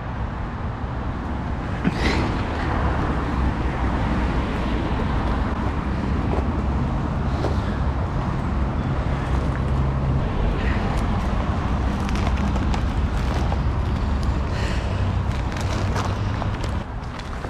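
Steady road traffic: vehicles passing on a roundabout with a continuous tyre rush and engine hum, swelling about two seconds in. Scattered light clicks sit over it.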